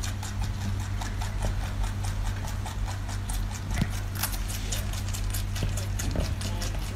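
Rabbit chewing a fresh leafy green stem close to the microphone: rapid crisp crunching clicks, several a second, over a steady low hum.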